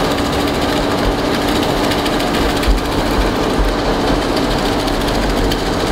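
Machinery running steadily: a dense, constant mechanical noise with one steady low hum, and a faint knock about two and a half seconds in.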